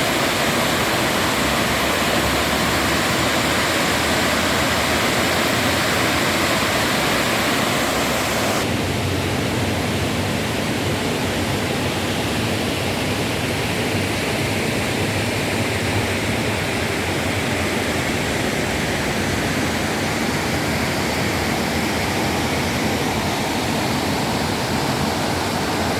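Chania Falls' water rushing steadily with a dense, even hiss. About nine seconds in it turns duller, with less of the high hiss.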